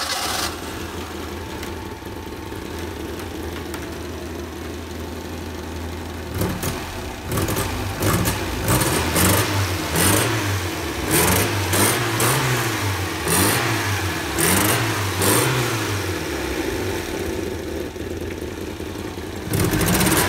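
The 1962 Alfa Romeo Giulietta Spider Veloce's 1.3-litre twin-cam four-cylinder is idling just after a cold start. About six seconds in, the throttle is blipped repeatedly, about ten quick revs up and back down. It settles to idle again and is revved once more near the end.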